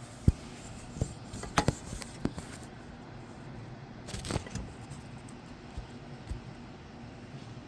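Metal tools and transmission parts being handled at a workbench: a handful of sharp clicks and knocks, then a short metallic jangle about four seconds in, and two lighter knocks near the end.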